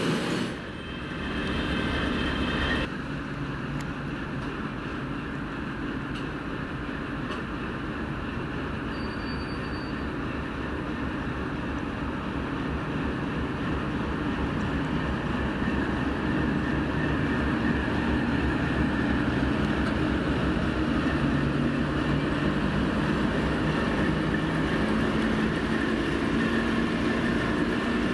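TEP70 diesel locomotive: its horn sounds for the first three seconds and cuts off, then the 16-cylinder diesel runs under load, with its drone building gradually and a turbocharger whistle over it.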